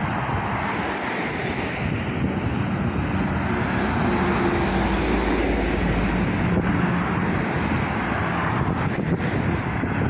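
Road traffic passing close by on a multi-lane road: a steady rush of tyres and engines, with a heavier vehicle's engine hum standing out between about four and seven seconds in.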